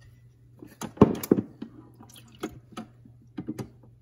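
Water poured from a cup into a single-serve coffee maker's water reservoir, splashing and dripping, loudest about a second in, with a few smaller drips and taps after.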